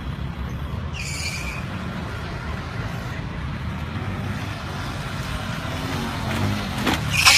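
Small motorbike engines running with a steady low rumble, and a louder burst of noise near the end.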